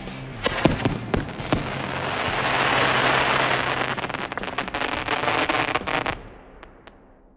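Firework barrage cake firing: several sharp bangs in the first second and a half, then a dense wash of crackling that builds and stops abruptly about six seconds in, leaving a fading tail.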